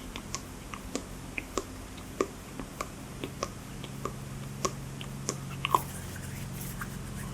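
Hands making close-up ASMR hand sounds: a string of short, soft clicks and snaps at irregular spacing, about two or three a second, over a faint low steady hum.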